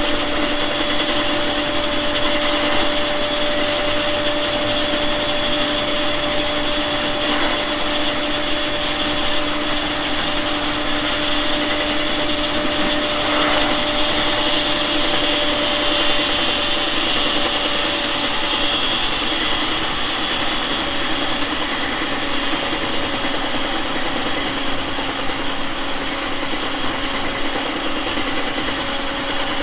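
JR East 701 series 5500 subseries electric train running at speed, heard from inside the car. Steady wheel-and-rail rumble carries through, under a steady hum from the traction equipment.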